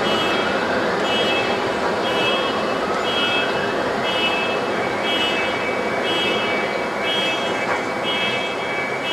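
A vehicle's reversing alarm beeps about once a second over a steady rumble of city traffic and machinery. A higher whine rises over the first few seconds, then holds a steady pitch.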